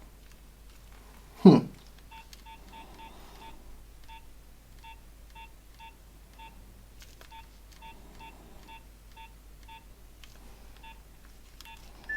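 Nokia 1100 keypad beeps as its buttons are pressed: about twenty short beeps of one pitch at irregular spacing, with a longer, higher beep near the end. A brief louder sound about one and a half seconds in.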